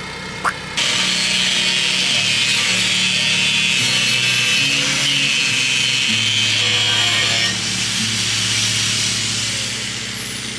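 Handheld angle grinder cutting steel angle iron: a loud, harsh hiss that starts abruptly about a second in. Near the end the cutting stops and the disc's high whine falls away as it spins down.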